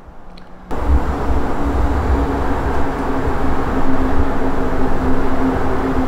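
Raccea 60mm flat-burr electric coffee grinder's motor starting abruptly just under a second in and then running steadily, a low rumble with a steady hum.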